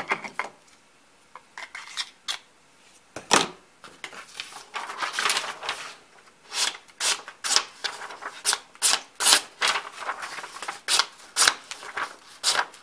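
A thin homemade knife blade with a 17-degree edge slicing through sheets of construction paper, each cut a short, sharp papery swish. The cuts are few and spread out at first, then come quickly, about two a second, in the second half.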